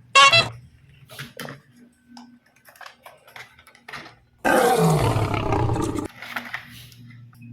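Electronic roar from a toy T-rex dinosaur, loud and about one and a half seconds long, starting about four and a half seconds in. A short loud pitched sound comes just after the start, and a few light clicks fall in between.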